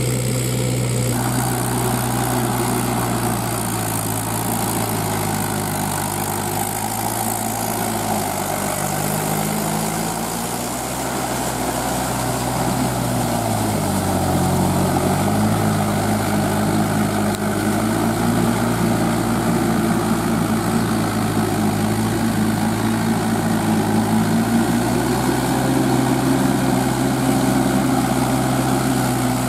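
Mahindra 475 DI tractor's four-cylinder diesel engine running steadily as it pulls a disc plough. Its note sags for a few seconds around the middle, then picks back up.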